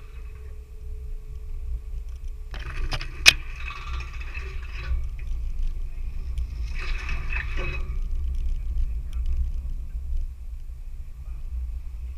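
4x4 vehicle crawling along a rough off-road trail: a steady low engine and drivetrain rumble, with two short bursts of clattering noise and a sharp knock about three seconds in.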